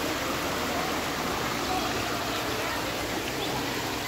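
Shallow river water running steadily over rock cascades, a continuous rushing and splashing.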